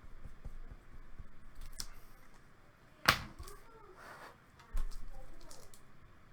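Trading cards and their hard plastic holders being handled on a table: faint ticks and rustles, a sharp click about three seconds in and a duller knock a little before five seconds.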